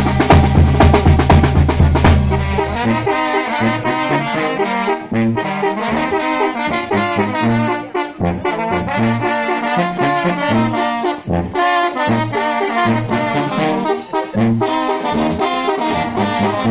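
Mexican banda brass band playing, with a heavy drum roll for the first two seconds or so. The brass then takes up a rhythmic melody, with trombones and trumpets over the bass drum and snare.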